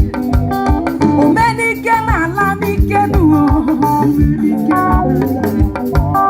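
Music with a steady beat: plucked guitar lines and a singing voice over a regular bass pulse.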